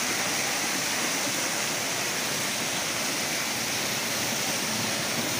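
Water falling and splashing over wet concrete steps: a steady, even rush.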